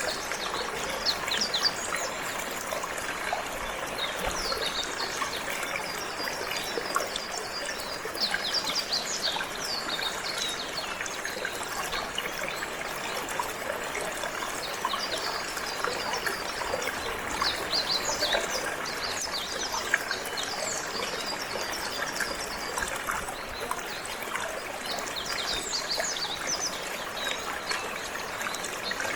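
Water trickling and flowing steadily, with a canary singing over it in recurring runs of quick, high chirps and trills.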